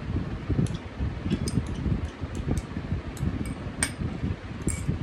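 Spoon clinking against a bowl as a chopped corn and vegetable mixture is stirred: a dozen or so light, irregular clicks over a low, steady room rumble.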